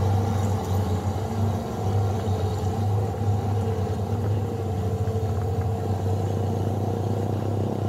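Diesel engine of a fully loaded truck pulling steadily up a dirt incline under load, a continuous low rumble that grows slightly fainter as the truck moves away.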